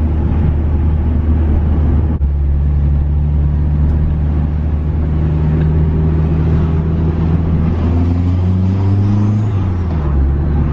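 Turbocharged Mitsubishi Eclipse engine heard from inside the cabin while driving: a steady drone with a brief break about two seconds in. Later the pitch climbs as the car accelerates, then drops near the end.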